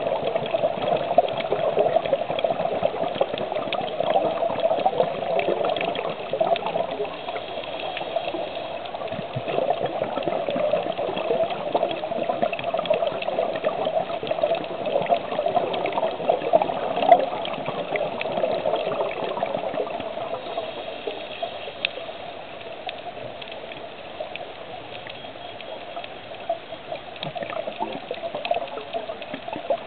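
Underwater ambience on a coral reef: a steady, muffled rush of water with many small crackles and clicks, somewhat quieter in the last third.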